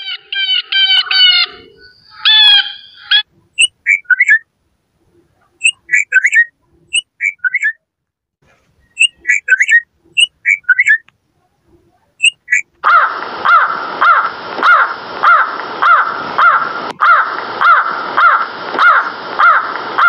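A sequence of recorded bird calls: two harsh blue jay calls in the first three seconds, then short, scattered chirping notes of a red-vented bulbul, then from about 13 seconds a crow cawing over and over, about two caws a second.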